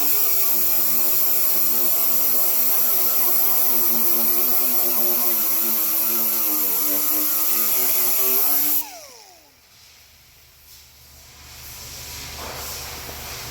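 Handheld power tool running at a steady speed with a strong hiss, its pitch wavering slightly under load. About nine seconds in it is switched off and its pitch falls quickly as it winds down.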